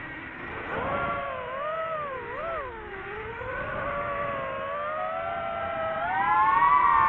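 DJI FPV drone's motors and propellers whining, the pitch sliding down and up with throttle changes, then rising to its highest and loudest about six seconds in.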